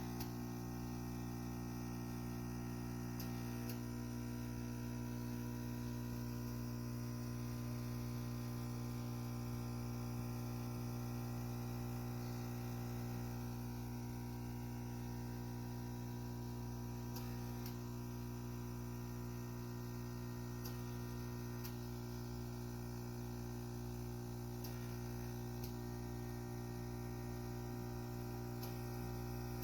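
Steady electrical mains hum with a few faint ticks.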